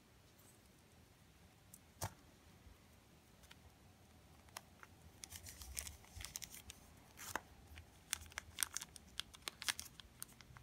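Faint crinkling of small plastic jewellery bags being handled, with scattered light clicks and taps, sparse at first and busier in the second half.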